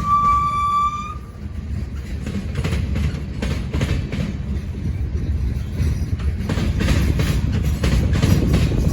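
A freight train's horn holds one steady note that cuts off about a second in. The low rumble of the passing train follows, with the repeated clickety-clack of freight car wheels over rail joints.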